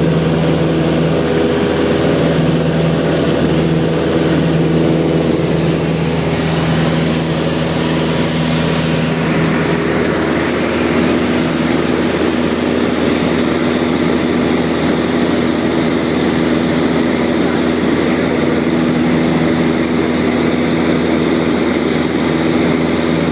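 Cabin noise of a Beechcraft light aircraft in flight: the engine and propeller drone steadily and loudly under a rush of air. The drone's tone changes about six to ten seconds in, as the engine setting changes.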